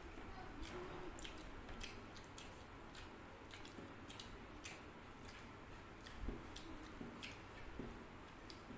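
People eating rice and curry by hand: soft wet chewing and mouth clicks, and fingers squishing and mixing rice on the plates, with irregular small clicks throughout.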